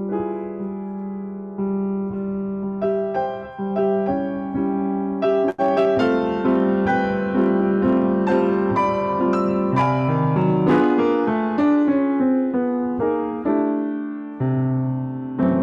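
Piano playing: held chords at first, then a busier run of struck notes from about five seconds in.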